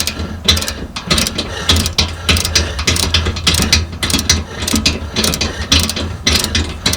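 Hand ratchet wrench with a 15/16 inch socket clicking in repeated back-and-forth strokes as a hitch mounting bolt is turned.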